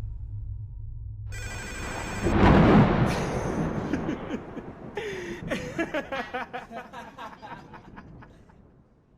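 Closing seconds of a music video's soundtrack: a low bass line, then a high pulsing tone and a loud swell of noise, followed by a run of rapid clicks and short sliding tones that fade out to silence near the end.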